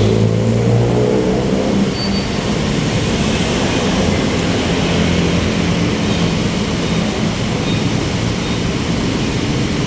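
City road traffic: a motor vehicle's engine running close by, strongest in the first couple of seconds, over a steady wash of traffic noise.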